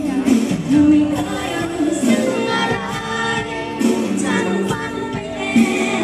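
Live Thai luk thung band music with singing, played loud through a stage PA system.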